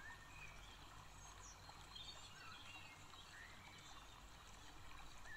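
Near silence: faint room tone with a few brief, faint bird chirps scattered through it.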